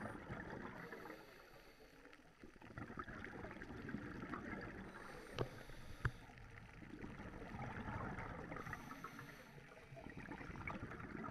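Underwater: a scuba diver breathing through a regulator, with bubbling exhalations that swell and fade in slow cycles. Two sharp clicks come near the middle.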